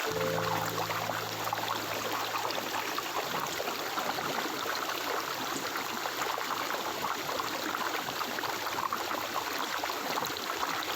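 Water running in a stream: a steady, even rush of babbling and splashing. A low held musical drone sounds underneath for the first few seconds, then fades out.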